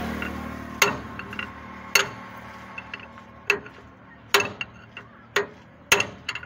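Steel rebar rod knocking against the inside of a truck wheel hub, about seven sharp metallic clinks, roughly one a second at uneven intervals.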